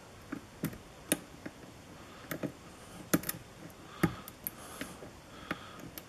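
Steel hook pick scraping and tapping against the pins and warding inside a pin-tumbler lock under a tension wrench: irregular small metallic clicks, the loudest about three and four seconds in.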